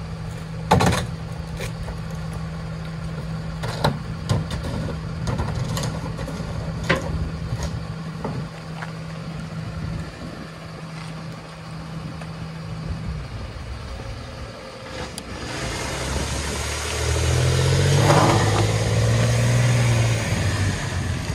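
Garbage truck's diesel engine idling, with a few sharp clanks as a trash can is dumped into the rear hopper and dropped in the road. About two-thirds of the way in, the engine revs up loudly as the truck accelerates away.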